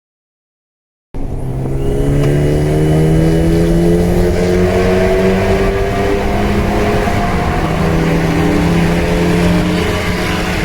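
Sports car engine under acceleration in a tunnel, cutting in suddenly about a second in and running loud, its pitch climbing slowly before levelling off near the end.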